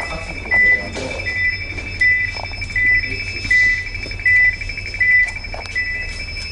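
Ship's bridge alarm beeping repeatedly: a short high beep about every three-quarters of a second over a steady high tone, with the low hum of the ship underneath.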